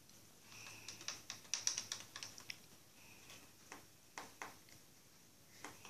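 Faint, irregular light clicks and ticks from a homemade baking-soda-and-vinegar volcano being topped up with powder poured from a small plastic cup into the bottle's neck, a cluster of them in the first couple of seconds and a few single ticks after.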